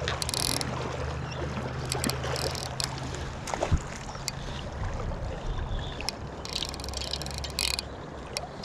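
Fly reel's clicking drag buzzing in several short bursts as a hooked trout pulls line, over the steady rush of the river.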